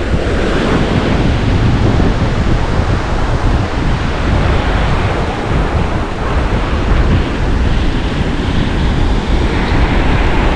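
Sea surf washing on a beach, with strong wind buffeting the microphone as a heavy, uneven rumble.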